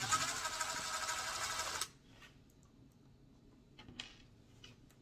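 Craftsman cordless drill running for about two seconds with a socket on an RC truck's wheel nut, spinning the nut off, then stopping abruptly. A faint click follows about four seconds in.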